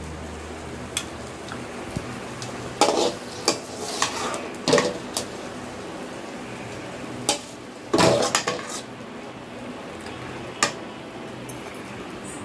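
Metal spatula scraping and knocking against an aluminium kadai as cooked chicken is scooped out into a bowl: scattered scrapes and clinks, the busiest about eight seconds in.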